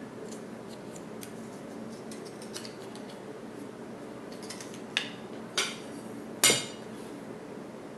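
Light ticking of a small paper card being handled, then three sharp clicks or taps, the third the loudest, over a steady low room hum.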